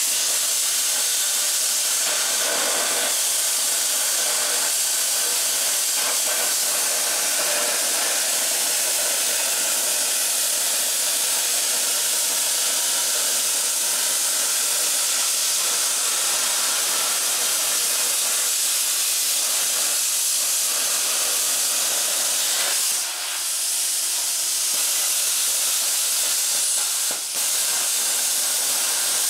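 Plasma cutter trimming a steel car bumper: a steady, loud hiss from the air-blown arc, which breaks off briefly twice near the end.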